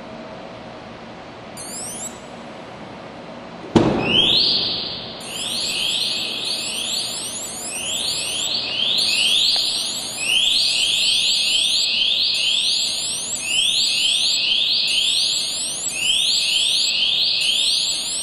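Yupiteru Aguilas car alarm going off: a sharp thump about four seconds in, then a loud electronic siren of quick rising sweeps repeating in runs until the end. This fits the alarm's shock sensor being set off by the knock.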